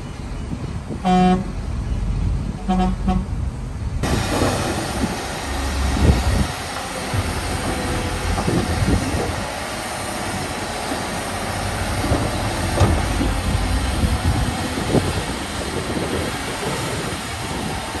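Two short toots of a heavy vehicle's horn in the first few seconds. From about four seconds in, heavy diesel earthmoving machinery working: a steady low rumble with scattered clanks, and the engine surging briefly about six seconds in.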